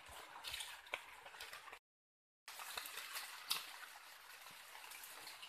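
Light drizzle pattering on forest leaves, a steady soft hiss full of tiny ticks, with a few sharper knocks of wooden poles being handled. The sound cuts out completely for about half a second near two seconds in.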